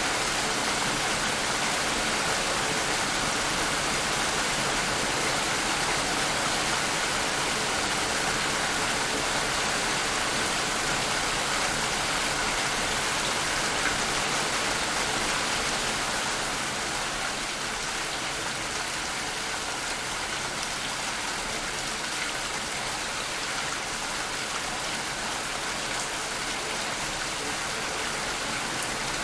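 Steady rain falling, an even dense hiss of drops, easing slightly in loudness about halfway through.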